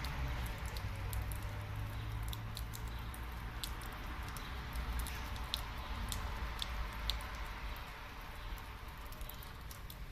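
A thin stream of water running from a wall tap and splashing onto stone: a steady hiss with small sharp ticks scattered through it.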